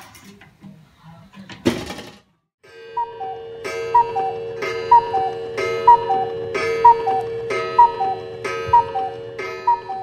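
A cuckoo-clock call: a falling two-note "cuck-oo" repeated about once a second over a steady sustained tone, starting about two and a half seconds in. Before it, a brief clatter.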